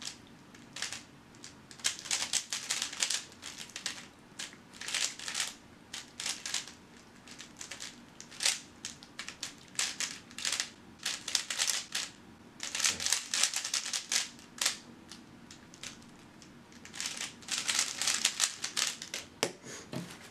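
A 3x3 speedcube being turned fast by hand: quick runs of plastic clicking and clacking in bursts, with short pauses between them.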